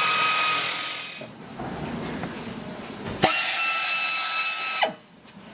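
Handheld pneumatic tire-repair tool, such as a buffer or reamer, run in two short bursts: a hiss with a steady high whine. The first burst cuts off about a second in; the second starts with a quick spin-up a few seconds in and spins down after about a second and a half.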